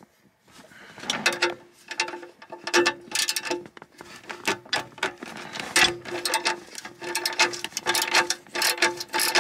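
Hand ratchet clicking in quick bursts as it turns a nut, starting about a second in.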